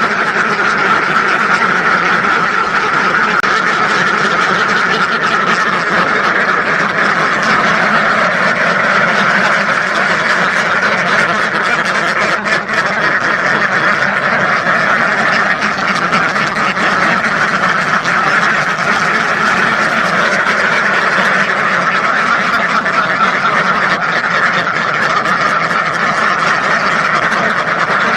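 A large flock of domestic ducks, thousands of them, quacking all at once in a dense, continuous din with no pauses.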